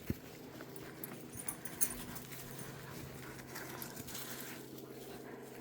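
A dog panting, faint, with a few sharp little clicks, the loudest just before two seconds in.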